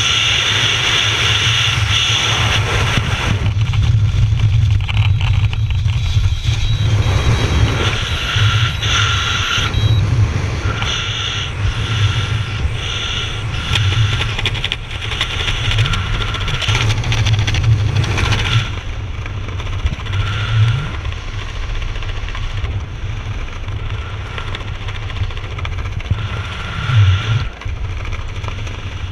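Air rushing and buffeting over a head-mounted camera's microphone during wingsuit flight. The wind noise is loud and keeps changing in strength, and grows a little quieter and duller in the last third.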